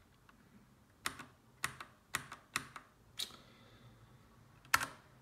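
Single key presses on a Bluetooth keyboard: five short clacks about half a second apart, then a louder one after a pause of about a second and a half.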